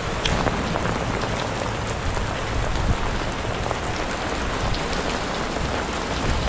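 Heavy rain falling steadily, with single drops ticking sharply here and there over a dense hiss and low rumble.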